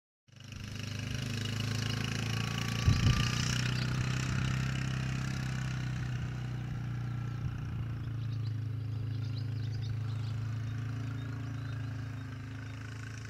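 Quad bike (ATV) engine running steadily as it drives, fading in at the start, with a few sharp thumps about three seconds in.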